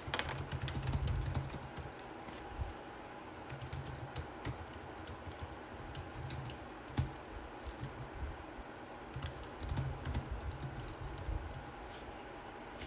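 Light plastic clicks and knocks of PVC pipes being handled and pushed into plastic tri-connectors, irregular and scattered throughout.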